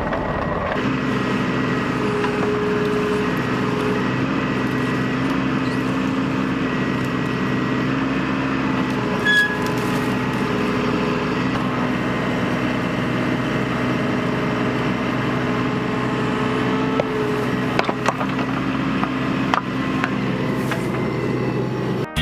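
Bobcat mini excavator's diesel engine running steadily under work. A higher whine rises and falls away a few times as the hydraulics are worked, with a few light knocks.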